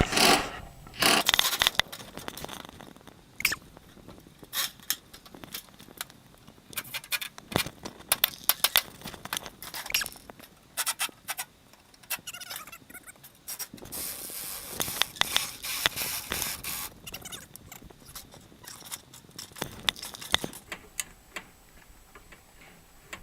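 Metal scraping and clanking from taking apart an air conditioner unit: a string of irregular knocks and scrapes, with a longer, denser scrape about two-thirds of the way through.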